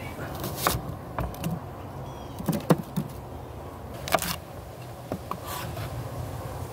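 Chef's knife cutting small peppers on a wooden cutting board: a few irregular taps and knocks, the loudest about two and a half to three seconds in.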